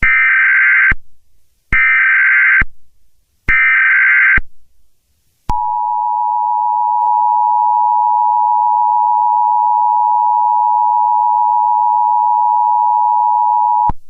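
Mock Emergency Alert System tones: three short bursts of the SAME header's digital data tones, then the steady two-tone EAS attention signal, starting about five seconds in and held for about eight and a half seconds.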